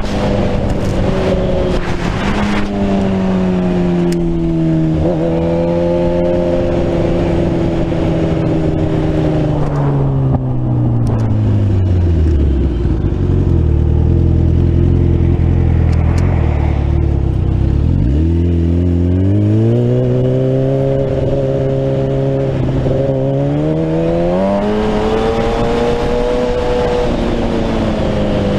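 Sport motorcycle engine heard from the rider's seat. Its note falls steadily as the bike slows, stays low for several seconds in the middle, then rises again in steps as it accelerates away through the gears, with wind noise over it.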